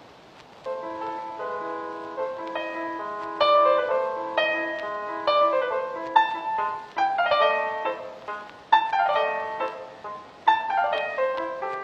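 Piano music as a film score: soft held notes at first, then busier struck notes and several quick runs falling in pitch.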